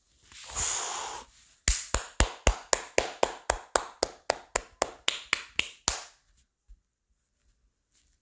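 A brief noisy rush, then a rapid, even run of about seventeen sharp clicks, about four a second, that stops about six seconds in.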